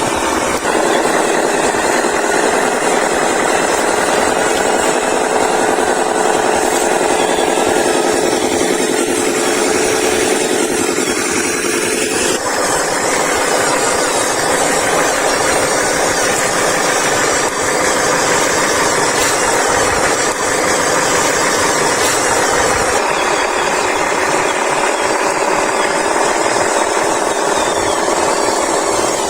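Small electric motors and gearboxes of radio-controlled toy excavators and a dump truck whirring steadily as they work. A steady whine cuts out about twelve seconds in while the whirring goes on.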